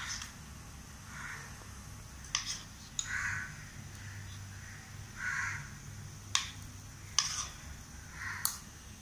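A metal spoon clinks sharply against a small steel bowl about six times while balls are dipped in batter. A crow caws four times in the background, each caw harsh and about half a second long.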